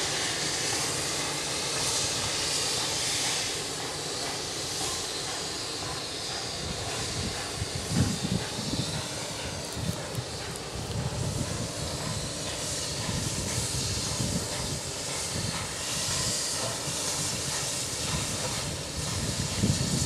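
JS class 2-8-2 steam locomotive slowly working a train of wagons: a steady hiss of steam, with an uneven low rumble coming in about eight seconds in.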